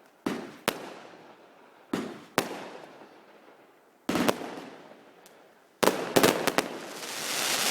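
Fireworks going off: sharp bangs, mostly in pairs about half a second apart, with each bang's echo trailing off. About six seconds in comes a quick run of cracks, and then a rising crackling hiss.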